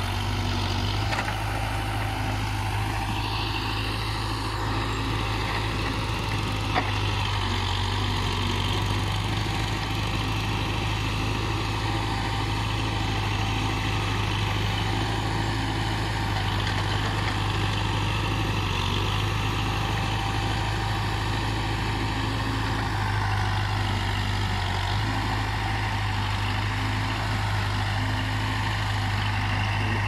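Case 580D backhoe loader's diesel engine running steadily with a deep drone while the operator works the backhoe arm. A brief knock about seven seconds in.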